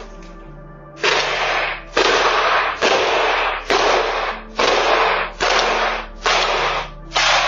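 Music with a loud, noisy hit repeating about once a second over held low notes that change every couple of seconds.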